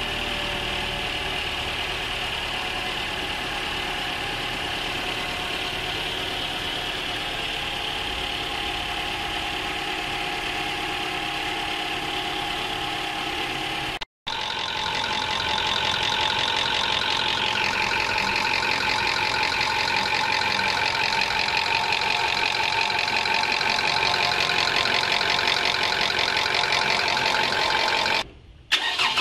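High-mileage Toyota four-cylinder VVT-i engine idling with the bonnet open, in two takes split by a short cut about halfway through; the second take carries a fast ticking from the top end. The top-end noise comes from sludge starving the valvetrain of oil, and it eases as the oil circulates after the flush.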